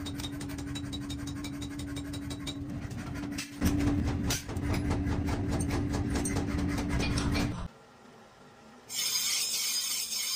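A hammer rapidly and evenly striking a hot steel cleaver blank, forged from leaf-spring steel, on an anvil block, about four to five blows a second over a steady machine hum. The hammering stops suddenly near the middle. About a second later a grinding wheel starts grinding steel with a loud, high hiss.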